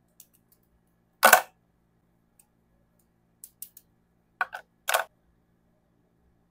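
Cosmetic pencils and eyeliners clacking against a clear plastic makeup organizer as they are set down in it: one sharp clack about a second in, a few light ticks, then two more clacks near the end.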